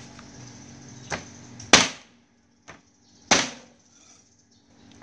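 Meat cleaver chopping duck pieces on a thick round wooden chopping block: a light tap about a second in, then two heavy chops about a second and a half apart, the first the loudest.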